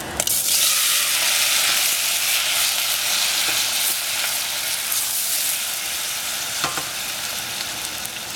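Tomato wedges dropped into hot oil in a stainless-steel saucepan, sizzling at once and going on hissing steadily, easing off slowly as they are stirred with a wooden spatula. A single light knock comes about two-thirds of the way through.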